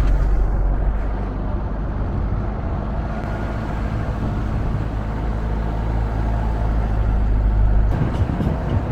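Motor vehicle running steadily with a low engine rumble. The deepest part of the rumble drops away about eight seconds in.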